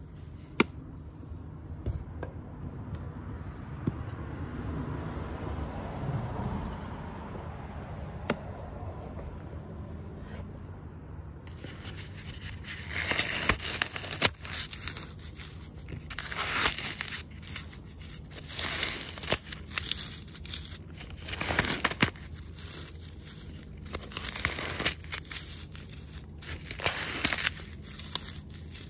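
A soft hiss of blue glitter pouring onto a soap-coated block of baked Sahara dry floral foam, then, from about twelve seconds in, a hand squeezing the block: repeated dry crunching and crackling as the brittle foam crumbles, in a dozen or so separate squeezes. A steady low hum runs underneath.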